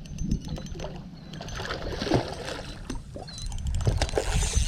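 Hooked common carp splashing and thrashing in shallow water as it is brought in close to be landed.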